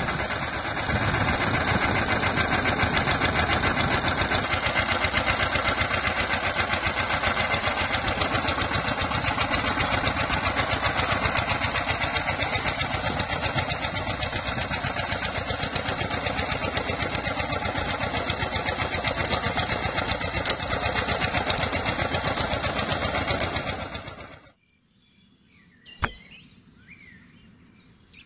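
Small electric motor of a DIY toy tractor running with a steady, rapid mechanical rattle, which stops abruptly near the end; a single sharp click follows in the quiet.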